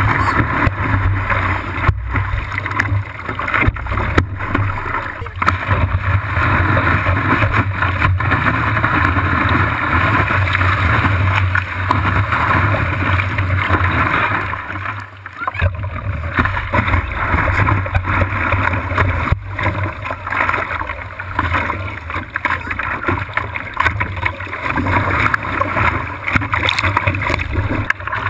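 Surf water rushing and splashing around a camera mounted at water level on a surfboard's nose, a steady wash of whitewater with a low rumble beneath. It dips briefly about halfway through.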